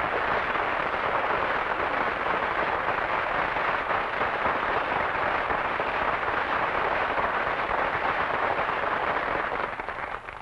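Studio audience applauding, a steady, dense clapping that fades away near the end.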